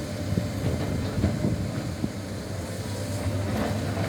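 Sany hydraulic excavator's diesel engine running steadily under work, with irregular short knocks scattered through it.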